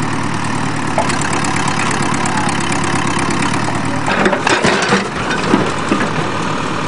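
Backhoe engine running steadily, then from about four seconds in a run of irregular clanks and crunches over it as the bucket works on the van.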